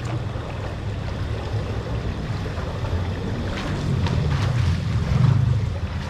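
Water splashing and sloshing as a person swims in a pool, with wind rumbling on the microphone.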